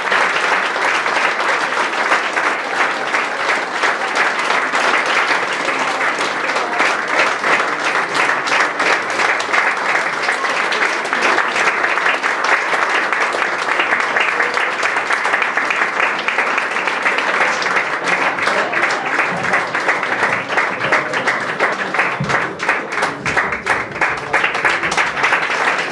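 Audience applauding, a dense steady clapping that thins out into fewer, separate claps over the last few seconds.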